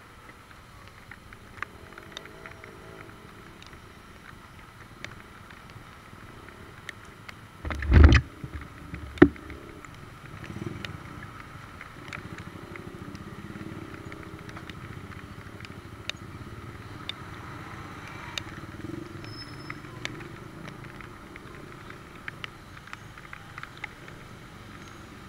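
Motorcycle creeping through slow, rain-soaked traffic: a low steady rumble of engines with scattered light ticks, one loud thump about eight seconds in and a sharp click a second later.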